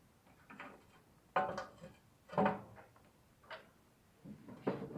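A few separate short clanks and clatters of tools and metal engine parts being handled, with quiet gaps between; the loudest comes just at the end.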